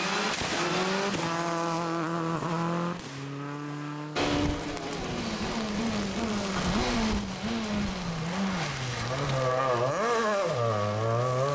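Rally car engine under hard throttle, its note rising and then dropping as gears change. About four seconds in the sound cuts sharply to another passage where the revs rise and fall again and again as the throttle is worked.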